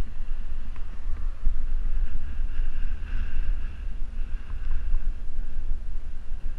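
Wind buffeting a moving action camera's microphone: a constant low rumble, with faint road noise beneath it.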